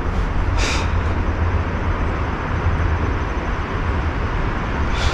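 Wind buffeting the microphone outdoors: a steady low rumble under an even hiss, with two short higher hissing gusts, one about half a second in and one near the end.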